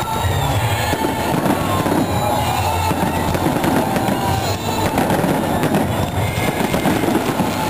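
Aerial fireworks bursting overhead with dense, continuous crackling, over music from loudspeakers.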